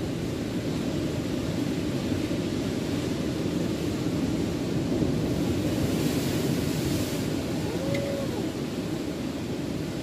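Big surf breaking on a rocky shore: a steady, low, rushing wash of waves that brightens briefly about six to seven seconds in.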